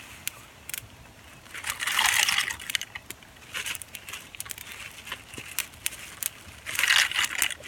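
Wood campfire crackling with scattered sharp pops. Two longer crunching rustles come about two seconds in and again near the end.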